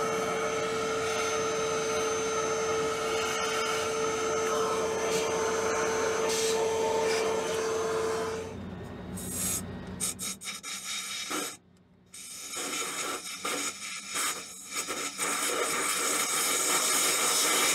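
Small battery-powered vacuum running steadily with a humming tone as its hose sucks debris out of a diesel engine's injector bores, cutting off about halfway through. After a few seconds of uneven, stop-start noise and a brief gap, compressed air from a blow gun hisses into the bores, loud.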